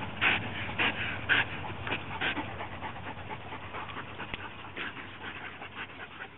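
Greyhound panting: quick breathy puffs about two a second, fading toward the end.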